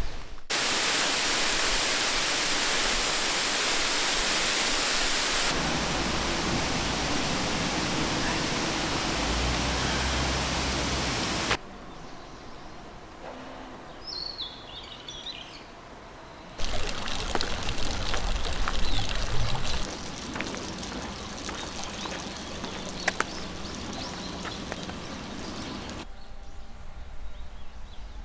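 Steady rushing water, loud and even, changing in loudness and tone at several abrupt cuts, with a quieter stretch about halfway through where a short high chirping call is heard.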